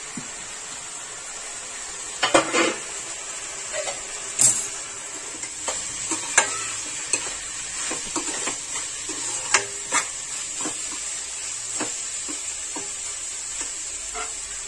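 Vegetables and spice powders for pav bhaji sizzling in oil in a kadai while a steel spoon stirs them, scraping and clinking against the pan at irregular moments from about two seconds in.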